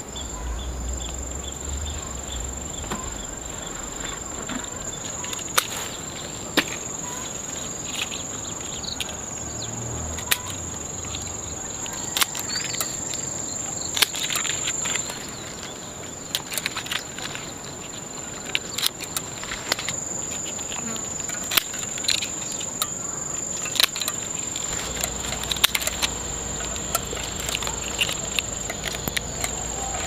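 Pruning shears snipping roselle stems: sharp clicks at irregular intervals over a steady, high-pitched insect drone.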